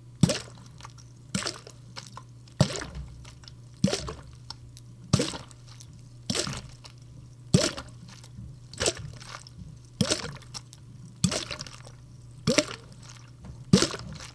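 Wet snow or slush being crunched and squished in a slow, even rhythm, about twelve times, roughly one every second and a quarter, over a low steady hum.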